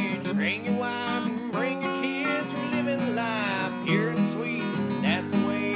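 Background music led by strummed acoustic guitar, with a gliding melody line over it.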